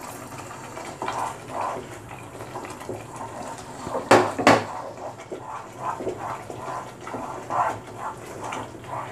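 Wooden spatula stirring a thick onion-tomato masala paste in a nonstick pan: a run of soft scraping strokes, with two sharp knocks close together about four seconds in.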